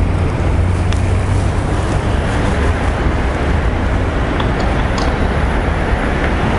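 Steady city traffic noise with a strong low rumble.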